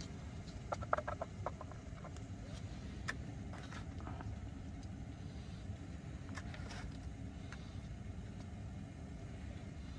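Spoon scraping and tapping on a pressure cooker pot while scooping out cooked rice: a quick run of light clicks about a second in and a few single taps later. Underneath is a steady low rumble.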